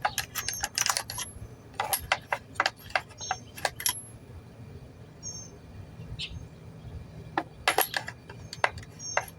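Scattered metallic clicks and clinks of a socket and wrench knocking against a small chainsaw as the socket is worked down toward the spark plug. A few clinks ring briefly.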